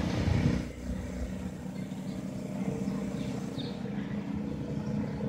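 Steady low engine rumble, with a few faint short high chirps in the second half.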